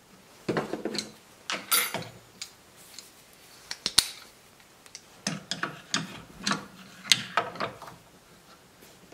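Hand tools working on the metal spindle of a wood lathe's headstock: irregular clicks, taps and scrapes of metal on metal, with one sharp click about four seconds in.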